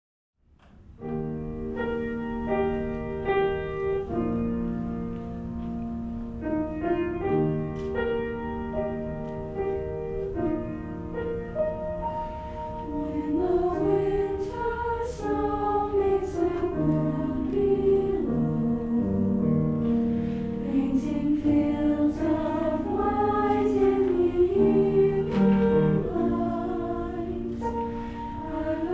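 A choir singing with piano accompaniment, the music starting about half a second in.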